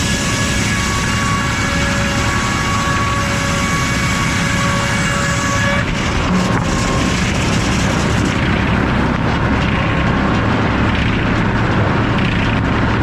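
Circular sawmill with an F-pattern inserted-tooth blade cutting through a log, a steady whine with a high hiss. About six seconds in the whine stops as the cut ends, and the mill keeps running.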